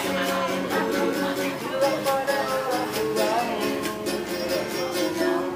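Music with plucked strings over a steady beat, and a voice singing.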